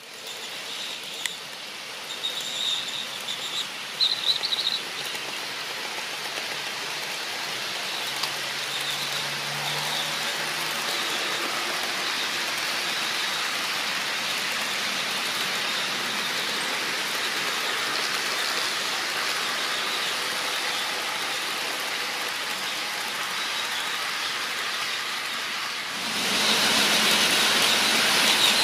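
HO scale model freight trains running: the steady whir of the locomotive motors and the rolling rattle of the cars' wheels on the track, growing louder and stepping up sharply about 26 seconds in. A few faint high squeals come in the first few seconds.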